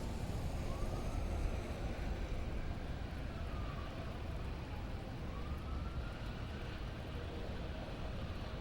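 Steady rain with a low rumble, and over it a faint siren wailing, slowly rising and falling in pitch about twice.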